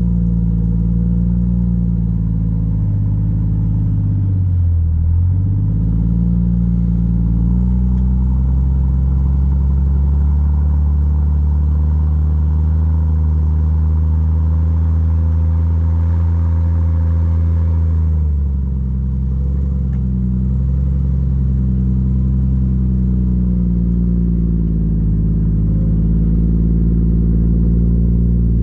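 Jeep Cherokee XJ rock crawler's engine running at low revs as it crawls up a steep sandy ledge. The revs dip and pick back up about four to five seconds in, and the note changes again about eighteen seconds in.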